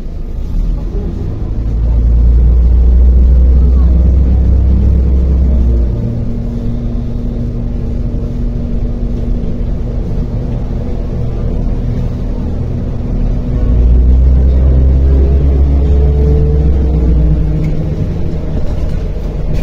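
Interior sound of a MAZ-105 city bus under way: a steady engine and drivetrain drone with road noise. Twice, about two seconds in and again about two-thirds through, a much heavier low rumble swells for about four seconds, and a whine rises in pitch during the second one.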